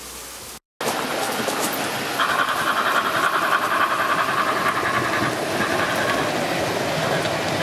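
O gauge model LNER A4 locomotive and its coaches running past on the track, wheels rolling over the rails. The sound starts abruptly about a second in and is loudest for a few seconds while the locomotive goes by.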